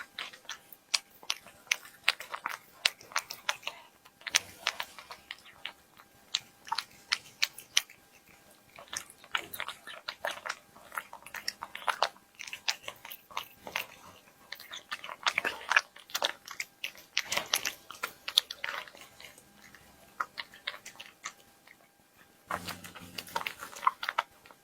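A cat chewing and biting its food close to the microphone: rapid crunchy clicks in bursts, with short pauses between mouthfuls.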